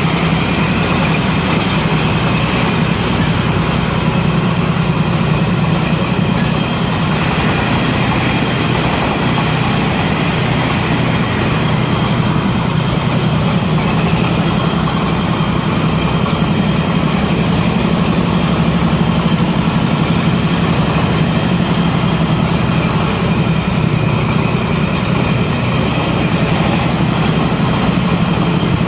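Corn sheller machine's engine running steadily at a constant speed, a continuous low hum with machine noise over it.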